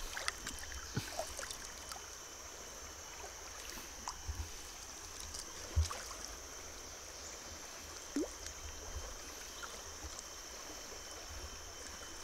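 River water trickling and gurgling, with a few small knocks and splashes from handling the net, the loudest about six and eight seconds in. A steady high insect drone runs underneath.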